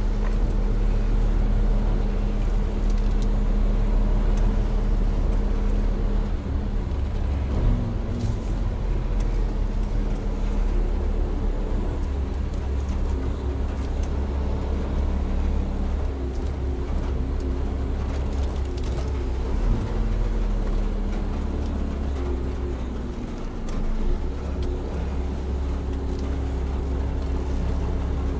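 Mitsubishi Fuso heavy truck's diesel engine droning steadily under way, its pitch shifting a few times as the engine speed changes, over a steady road-noise hiss.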